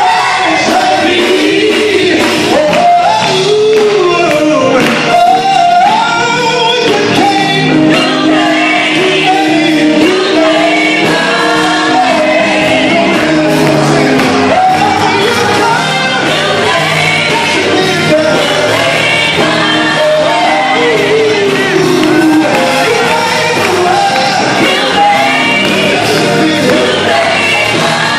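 Live gospel song: a male lead singer sings into a handheld microphone, backed by women singers and instrumental accompaniment, all amplified through a PA system.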